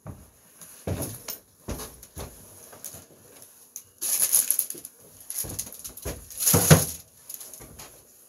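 Footsteps and knocks as someone walks in and sets things down, with loud crinkling of a plastic bag handled close by, twice, the louder near the end.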